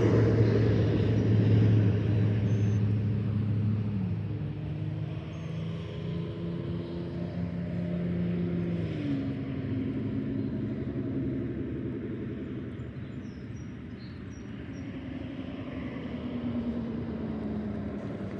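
Motor vehicle engine running, its pitch dropping in steps about four and nine seconds in, and growing fainter as it goes.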